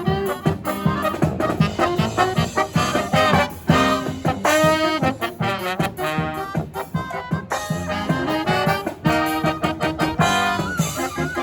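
Live brass marching band playing an upbeat swing-style tune, trumpets and trombones over a steady drum beat.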